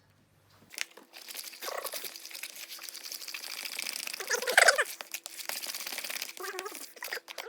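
Cake batter being whisked in a bowl: a fast, busy run of scraping clicks from the utensil against the bowl, starting about a second in. A few short squeaky, wavering sounds come in among it, the loudest about halfway through.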